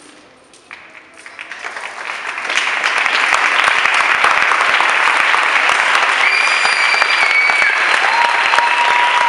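Audience applause that swells from quiet over the first couple of seconds into steady, loud clapping. A few long, high-pitched calls ring out above it in the last few seconds.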